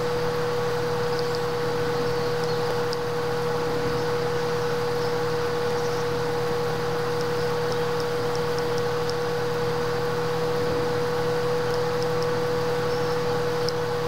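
Steady electronic or small-fan hum and hiss with a constant mid-pitched whine, unchanging throughout.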